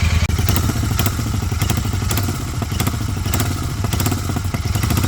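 Royal Enfield Continental GT 650's parallel-twin engine running, with a rapid, irregular clattering rattle over it: the abnormal "kat-kat" noise caused by loose silencer mounting bolts.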